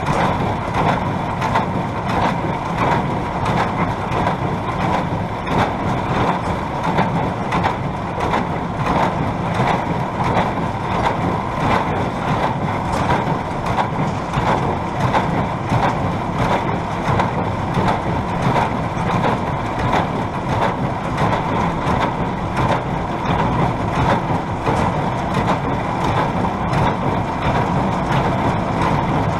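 New Holland 570 small square baler working behind a tractor, packing hay with a steady run of rapid knocks from its plunger over the drone of the tractor engine under load.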